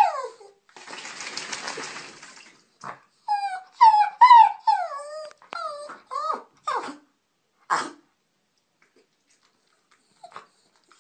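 A wet dog in a bathtub whining and howling in a string of short calls that each slide down in pitch. A hiss lasting a second or so comes shortly after the start, before the calls.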